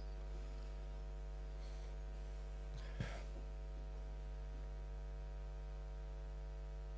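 Steady low electrical mains hum from the microphone and sound system, with one faint short sound about three seconds in.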